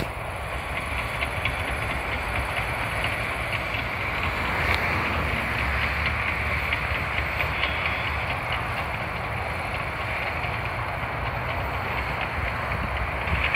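Cat D6N crawler dozer working under load: its ACERT diesel engine runs steadily beneath the clatter of its steel tracks. The clatter and engine swell a little about five to seven seconds in.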